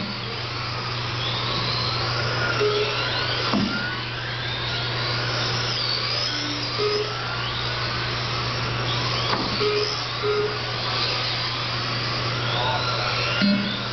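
Several Tamiya TT01 electric radio-controlled touring cars racing, their motors whining in pitches that rise and fall as they speed up and slow down. Short electronic beeps recur, with a few sharp knocks and a steady low hum underneath.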